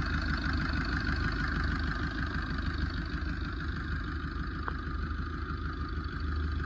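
Maruti Swift Dzire car engine idling steadily, running on its newly fitted timing chain.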